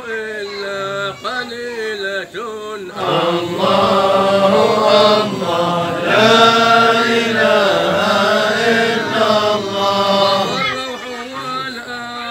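Men's voices chanting Sufi dhikr of a hadra, a drawn-out melodic chant. It swells louder about three seconds in and eases back near the end.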